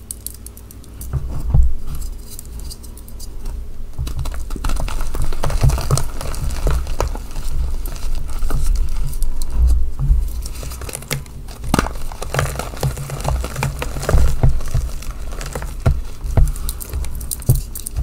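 Hands crushing reformed gym chalk (powder pressed into bunny shapes) in a tray of loose chalk: crisp, crunchy crackling with soft low thumps as the pieces break and crumble into powder. It starts quieter and gets busier and louder after a second or two.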